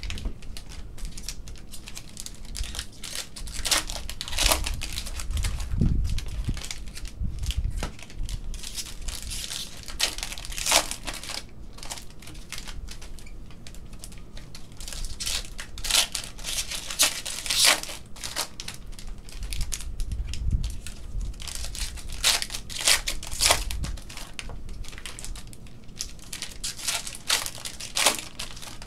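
Panini Contenders basketball card packs being ripped open by hand: irregular crinkling and tearing of the pack wrappers, with cards handled in between.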